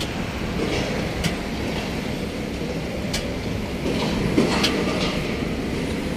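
Heavy construction machinery running: a steady diesel rumble with metallic rattling and a few light clanks.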